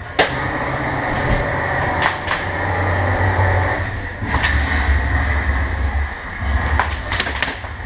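Steady low rumbling noise, broken by several sharp cracks of airsoft guns firing, three of them in quick succession near the end.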